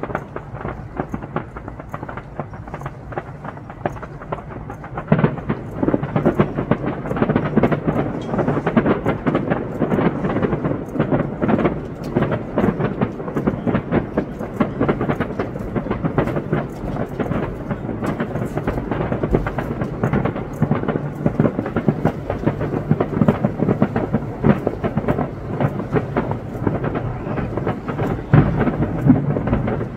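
Fireworks display: shells bursting in quick succession, so close together that they blur into one continuous sound of booms and crackles. It grows denser and louder about five seconds in.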